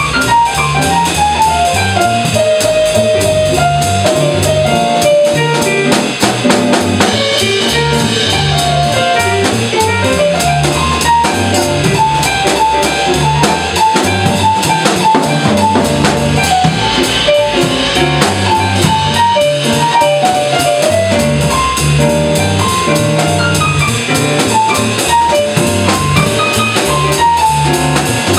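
Small jazz combo playing in swing time: upright bass walking, drum kit keeping time with steady cymbal strokes, and a Roland keyboard, with a single melody line moving over them.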